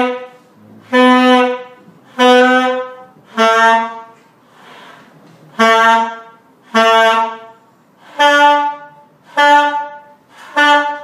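A beginner playing a saxophone through a slow written exercise: nine separate held notes, each under a second and tongued one at a time. Three are on one pitch, the next three a step lower with a short pause among them, and the last three higher.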